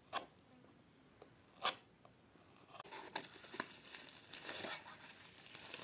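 Packing tape being cut and torn off a parcel box, faint: a couple of sharp clicks, then from about three seconds in a continuous rustling and tearing of tape and packaging.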